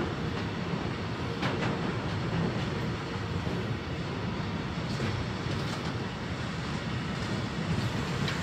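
Freight train's container flat wagons rolling past on the track: a steady rumble of steel wheels on rail, with a few sharp clicks as wheels pass over the track joints.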